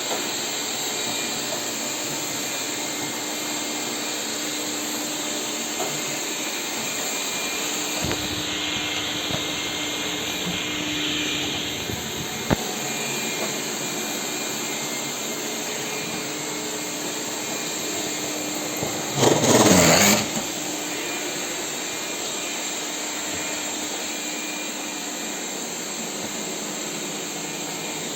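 Lefant M201 robotic vacuum cleaner running, a steady suction and motor noise with a faint hum and a thin whine. A sharp click comes about twelve seconds in, and a louder rushing noise lasting about a second comes roughly two-thirds of the way through.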